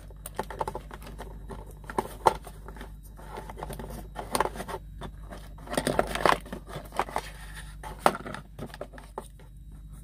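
Irregular plastic clicks, scrapes and rustling as a USB charger socket and its wiring are fed and pushed into a tight hole in a truck's plastic dash panel, with a denser burst of scraping about six seconds in.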